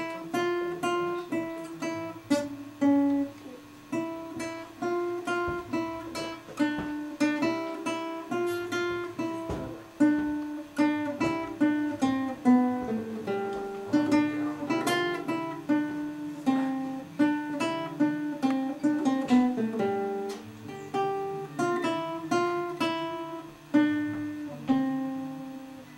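Classical guitar played solo, fingerpicked: a melody of plucked notes over lower bass notes, ending on a note left to ring near the end.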